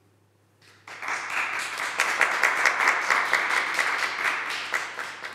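Applause from a small group of people clapping, starting about a second in and tailing off near the end.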